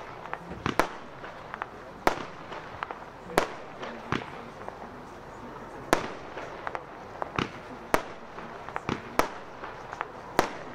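Consumer firework battery firing aerial shots: a sharp bang about every one to two seconds as the shells burst, with smaller pops and cracks in between.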